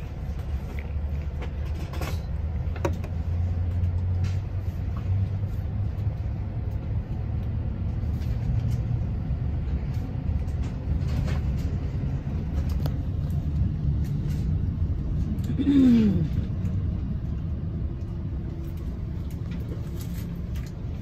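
Steady low rumble of a moving Amtrak Pacific Surfliner passenger train, heard from inside the coach. A short falling whine sounds about three quarters of the way through.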